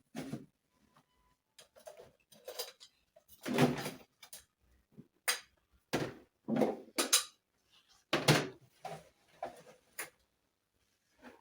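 Kitchen dishes and containers being handled and set down: an irregular series of knocks and clatters, loudest a few seconds in and again about eight seconds in.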